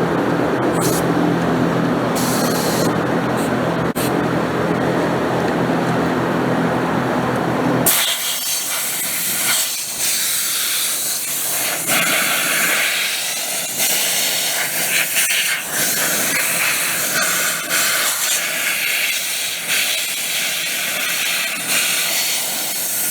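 A low steady machine hum, then about eight seconds in a compressed-air hose starts hissing loudly in uneven blasts, blowing grass and dirt out of a riding-mower tire's rim.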